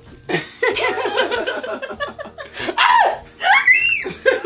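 Two people laughing loudly together, with a high rising-and-falling squeal a little past three seconds in.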